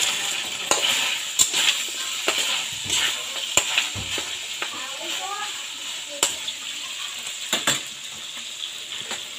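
Meat sizzling as it fries in an aluminium wok, a steady hiss, while a metal spatula stirs it, with sharp knocks of the spatula against the pan at uneven intervals.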